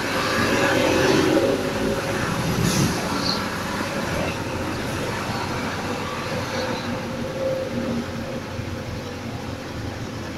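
City bus driving along a town street, heard from inside the cab: engine and road noise. It is loudest for the first two seconds or so as the bus crosses the junction, then gradually quieter.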